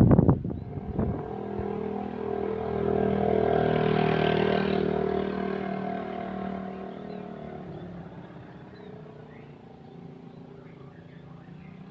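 A passing vehicle's engine, a steady hum that swells to its loudest about four seconds in and then fades away.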